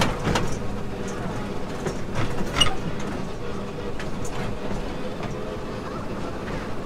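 Amusement-park train carriage rolling along its track: a steady rumble of wheels on rails, with a few sharp clicks and a faint steady whine.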